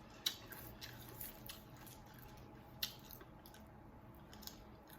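Faint chewing and mouth sounds from eating close to the microphone: soft wet smacks and clicks scattered through, two of them a little louder.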